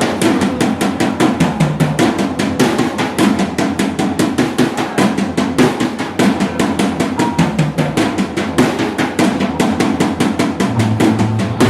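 Live rock band playing a fast song, led by a drum kit hitting snare and cymbals on a fast, steady beat, with low bass notes coming in more strongly near the end.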